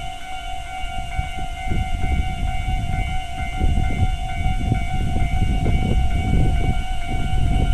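Japanese level-crossing warning bell sounding its standard electronic tone, a fast steady repeating ding, while a train passes over the crossing; the train's rumble builds from about a second and a half in and stays loud through the rest.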